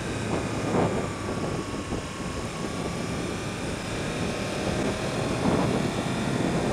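Wind rushing over a helmet-mounted microphone with the 2015 Yamaha YZF-R1's crossplane inline-four running underneath while cruising, its engine note steady and easing slightly in pitch.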